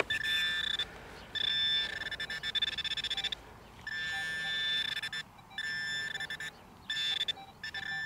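Handheld metal-detecting pinpointer probed in a dug hole, giving a steady high-pitched buzz that cuts in and out in stretches of under a second to two seconds as it is moved on and off a metal target in the soil.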